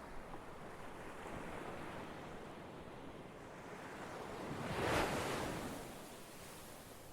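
Ocean waves breaking on a shore: a steady wash of surf, with one wave swelling to a louder crash about five seconds in and then receding.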